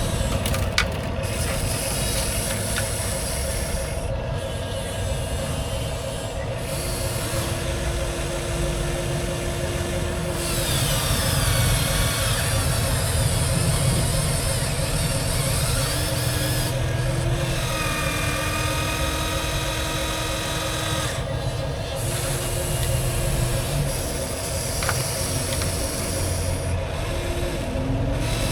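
Small electric motors and gearboxes of radio-controlled construction vehicles running, with a steady hum throughout and shorter motor whines that start and stop several times, over a grinding, scraping noise.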